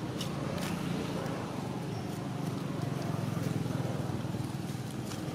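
Steady low rumble, with a few brief crackles of dry leaves underfoot near the start and again near the end.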